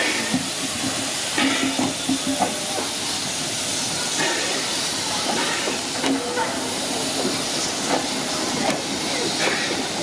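Steam engine letting off steam: a steady loud hiss, with scattered short knocks and brief faint squeaks.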